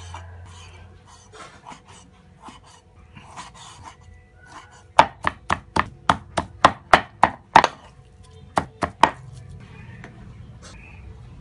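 Kitchen knife cutting raw pork on a round wooden chopping board: soft slicing strokes at first, then, about five seconds in, a quick run of sharp chopping knocks of the blade on the board, about four a second, with a few more after a short pause.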